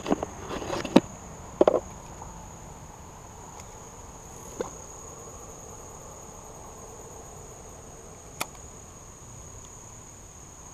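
Steady high-pitched insect chorus. A few sharp knocks in the first two seconds and two single clicks later are heard over it.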